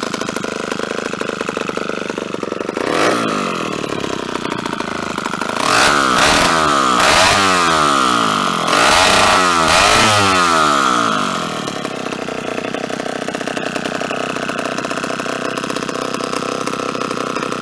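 1957 Homelite 5-20 chainsaw's two-stroke engine idling. It is blipped once about three seconds in, then revved up and down several times between about six and eleven seconds before settling back to idle.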